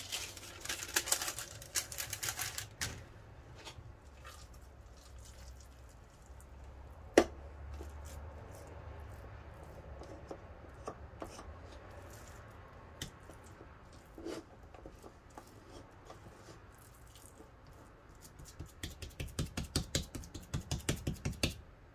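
Hands shaping minced meat into cutlets: soft squishing, rustling and small clicks, a sharp click about seven seconds in, and a quick run of light pats near the end.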